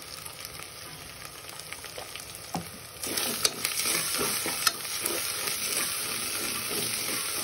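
Onions and ginger-garlic paste sizzling in hot oil in an aluminium pressure cooker, fairly quiet at first. About three seconds in a metal spoon starts stirring, and the sizzling grows louder, with clicks and scrapes of the spoon against the pot.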